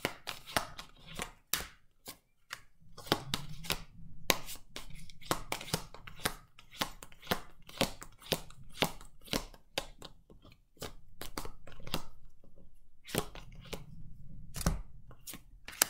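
A deck of oracle cards being shuffled hand to hand: a run of sharp card flicks and slaps, two or three a second, with a short pause about ten seconds in.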